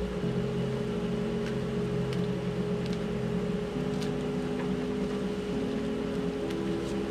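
Background music of sustained held notes that shift to new pitches every second or two, over a steady hum.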